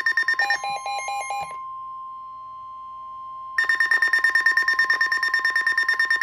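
Emergency alert attention signal from NOAA Weather Radio announcing a severe thunderstorm warning: a steady single tone under a fast pulsing electronic alarm buzz of about ten pulses a second. The buzz drops out for about two seconds in the middle, leaving the plain tone, then comes back.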